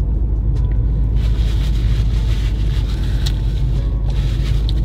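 Steady low rumble of a car idling, heard from inside the cabin, with a couple of faint clicks.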